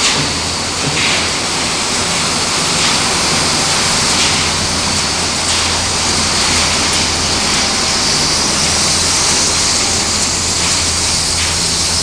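Refrigerator shredding and recycling line running: a loud, steady machinery din of motors, conveyors and air ducting, with a constant low hum under a strong hiss.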